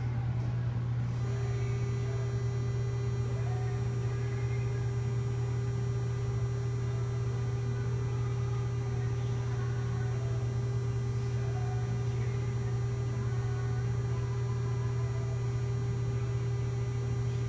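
Medical linear accelerator running during a whole-brain radiation treatment: a steady low hum, joined about a second in by a steady higher tone and a thin high whine that switch on suddenly and hold, typical of the treatment beam being on.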